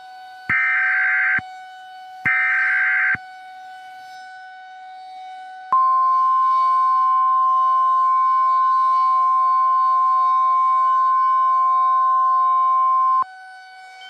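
Emergency Alert System header and attention signal opening a tornado warning. Two short bursts of screeching digital data tones come first, then after a pause a loud, steady two-tone attention signal held for about seven seconds that cuts off abruptly, over a faint steady hum.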